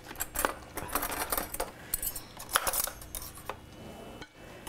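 Wooden spoon stirring rigatoni in a thick cheese sauce in a stainless steel skillet: irregular scrapes and knocks against the pan, with clinks of cutlery, thinning out near the end.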